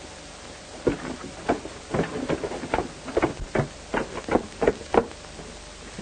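Horses' hooves clopping along the trail, irregular clops about two or three a second, over the steady hiss and hum of an old film soundtrack.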